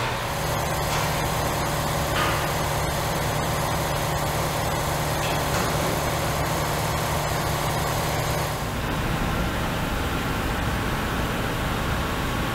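Kubota compact tractor's diesel engine running steadily while it carries a load on its forks, its note changing about two-thirds of the way in.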